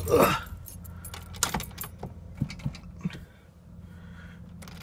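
Car keys jangling amid scattered clicks and knocks as someone climbs into the driver's seat, with a louder rustle right at the start.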